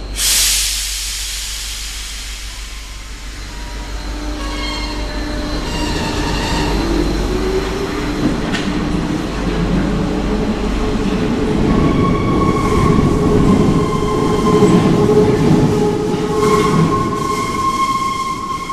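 RATP MF77 metro train running through the station. After a short burst of hiss at the start, the rumble of the wheels on the rails builds, with motor whines that climb in pitch. High steady wheel squeals come in the later part.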